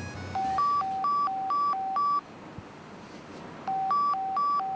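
Nokia mobile phone ringing. Its beeping ringtone alternates a low and a high tone at about four beeps a second, in a burst of about two seconds, then a pause of about a second and a half before it starts again.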